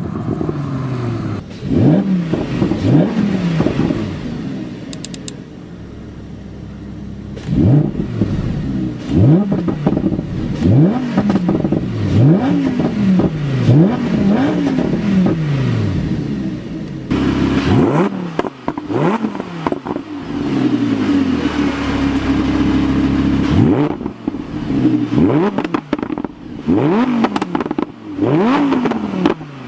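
Lamborghini Huracán LP610-4's V10 engine at full throttle, the revs climbing again and again and dropping sharply at each upshift, over several hard runs.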